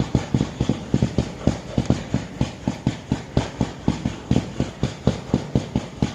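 Fireworks barrage firing in rapid succession: a steady stream of sharp launches and bangs, about four or five a second.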